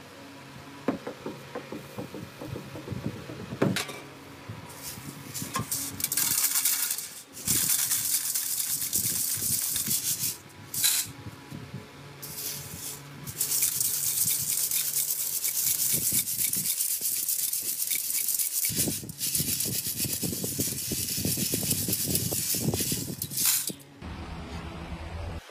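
Dry split chickpeas (chana dal with their husks) hissing and rattling as they are scooped, poured and shaken in a metal sieve and bowl, in long stretches with short pauses. In the first few seconds, a few sharp knocks from the stone hand quern being handled.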